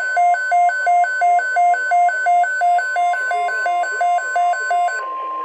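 Weather radio alert beeping rapidly, about three short beeps a second, over a steady high tone; the beeping stops abruptly near the end while the steady tone carries on.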